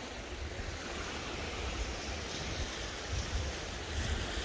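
Small Baltic Sea waves washing onto a pebble beach, with wind rumbling on the microphone in gusts. The sound cuts off suddenly at the end.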